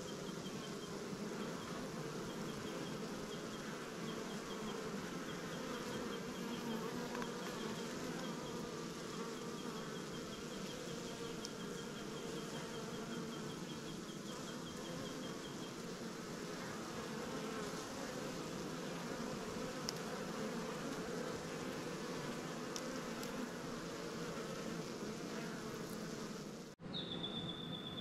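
Honeybee colony humming steadily, with the buzz of many bees at and around the hive. A faint, rapid high chirping runs through the first half. Near the end the sound drops out briefly, then a steady high tone comes in.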